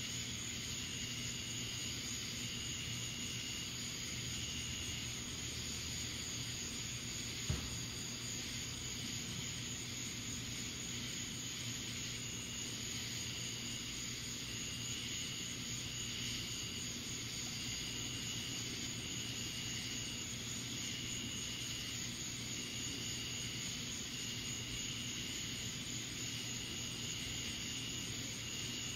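Steady outdoor night background hiss with a faint low hum and a high, thin tone pulsing on and off about once a second; a single sharp click about seven and a half seconds in.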